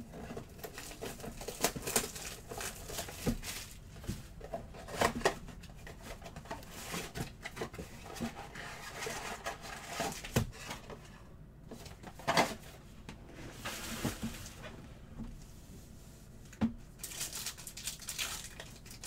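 A cardboard trading-card box being opened and handled, then a silvery foil card pack torn open near the end: scattered rustling, tearing and crinkling of cardboard and wrapper, with small taps and clicks.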